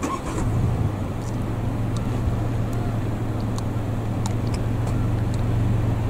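A motor engine running with a steady low hum that sets in just after the start, with faint short high ticks over it.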